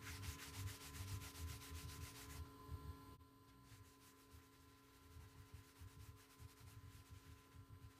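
Faint rubbing of a cloth rag wiping stain over a plywood skateboard deck, in quick back-and-forth strokes, loudest in the first two seconds or so and fainter after.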